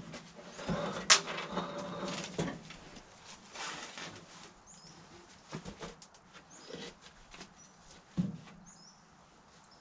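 Old wooden hopper boards being lifted and worked off the steel frame of a Turner hay press: scattered wooden knocks, clunks and scrapes. The sharpest knocks come about a second in and just after eight seconds.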